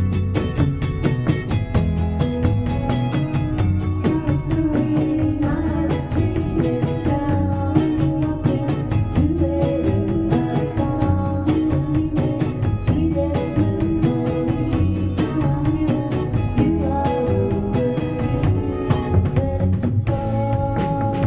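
A live rock band playing: electric guitars and a drum kit keeping a steady beat, with a woman singing into a microphone.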